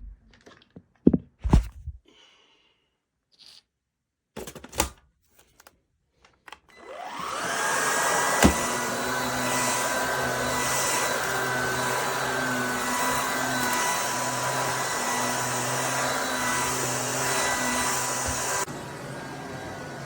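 A few clicks and knocks of handling, then the Oraimo cordless stick vacuum's 270 W brushless motor spins up with a rising whine about seven seconds in. It runs steadily with a high whine, and near the end the sound drops suddenly to a quieter level.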